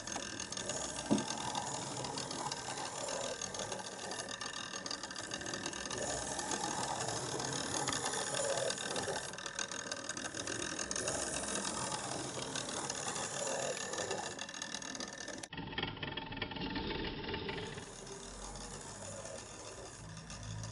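Clockwork mechanism of a replica optical cabinet running steadily, its geared clock movement turning the windmill sails with a continuous fine clicking of gears. A single sharp click comes about a second in.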